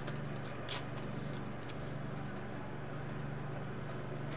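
Thin clear plastic card sleeve crinkling in a few short rustles as a trading card is slipped into it, over a steady low hum.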